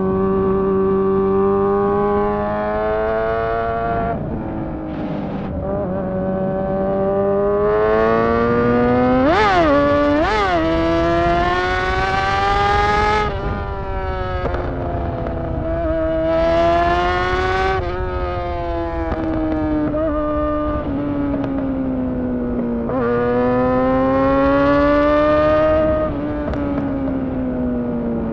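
Honda CBR600 inline-four engine running with no exhaust fitted, a loud, raw, open note. Its pitch climbs in long rises that break off in sudden drops, with two quick sharp blips about a third of the way in.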